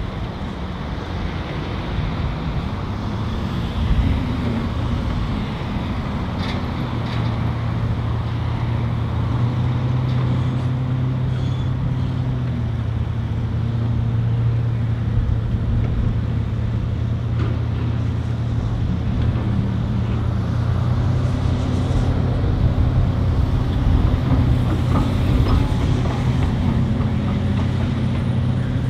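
Heavy diesel machinery running on a construction site: a steady low engine drone from the excavators and the dump truck that grows gradually louder, with a few faint knocks.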